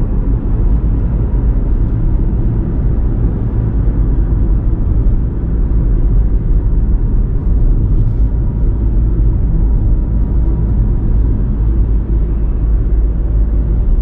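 Steady low rumble of a car driving along a road: engine and tyre noise.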